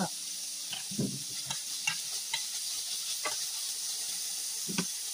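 Sliced bitter gourd and onion sizzling in a stainless steel frying pan as they are stirred. The stirring utensil clicks and scrapes against the pan about six times.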